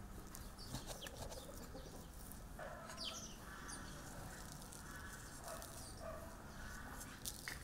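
Chickens clucking in the background, a few short calls in the second half.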